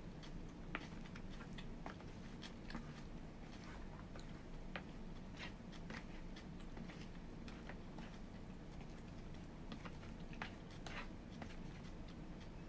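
Eating sounds: light, irregular clicks and scrapes of wooden chopsticks on a plastic bento tray as they break apart a hamburger steak, with soft chewing, over a steady low room hum.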